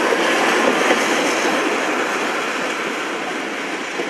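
Passenger coaches of a diesel-hauled train rolling away along the track, a steady rolling rumble that slowly fades as the tail of the train recedes, with a couple of faint knocks.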